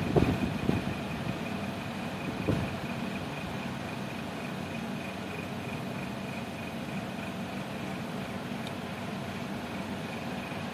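Steady background hum with a faint constant high-pitched tone, like a fan or small motor running, and a few soft knocks in the first seconds.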